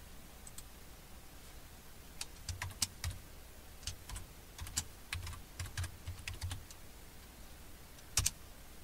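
Computer keyboard being typed on: a quick run of about a dozen light keystrokes over some four seconds, spelling out a short folder name, then a single louder click near the end.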